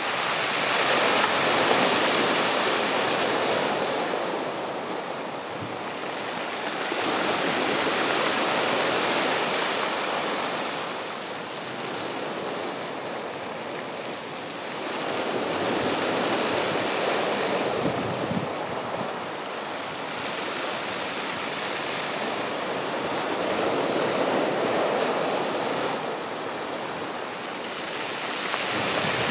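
Sea surf breaking and washing over a pebble beach, swelling and fading about every eight seconds.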